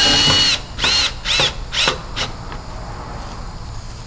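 Cordless drill/driver run in short trigger bursts while driving a screw through the pre-drilled holes of a granite side support: one half-second run, then three quick pulses, the motor whine rising and falling with each, stopping about two seconds in.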